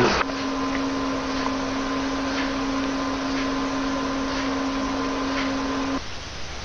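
Steady electrical hum with hiss from just-switched-on equipment. The hum is a single constant tone that starts abruptly and cuts off suddenly near the end.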